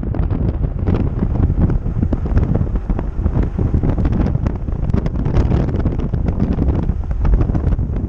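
Strong wind buffeting the microphone as it moves at speed, a loud rumbling rush that surges and drops unsteadily, with frequent small clicks and rattles.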